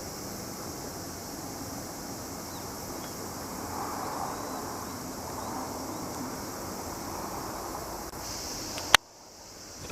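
Steady outdoor ambience with insects calling in a continuous high-pitched band. A sharp click comes near the end, and the background briefly cuts out after it.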